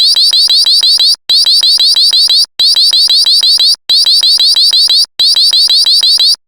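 Synthetic emergency-alert tone, homemade to imitate an EAS alarm: a rapid run of high, rising chirps. It sounds in five bursts of just over a second each, with short breaks between.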